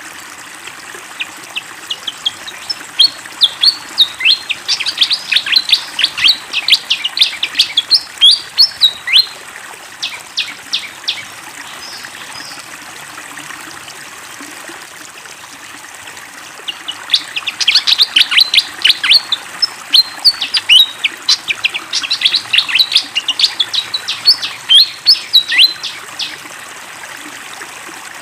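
A fantail (sikatan kipas) singing in two long bouts of rapid, high chirps, one from about a second in to about ten seconds, the other from about seventeen to twenty-six seconds. Steady flowing water runs underneath.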